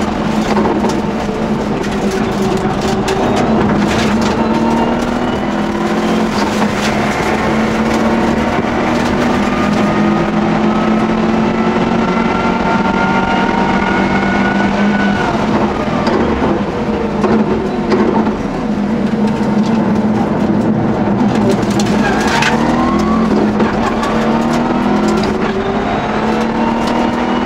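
In-cabin sound of a Subaru Impreza N9 Group N rally car's turbocharged flat-four engine being driven hard. The engine note climbs slowly through a long pull, drops in pitch about two-thirds of the way through as the car slows, then climbs again, with a few sharp clicks.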